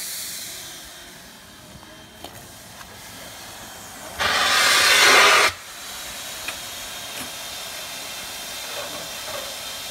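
Two-foot gauge steam locomotive No. 9 standing and hissing steadily, with a loud burst of venting steam about four seconds in that lasts over a second and stops sharply.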